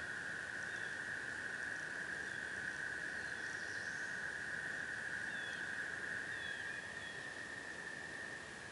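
A dense, steady chorus of tree frogs calling together as one unbroken trill, with a few faint short chirps of small birds over it.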